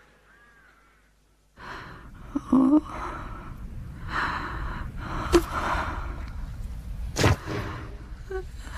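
A person gasping and sobbing in grief. The breaths start suddenly after a second and a half of near quiet, with a few sharp, louder catches of breath.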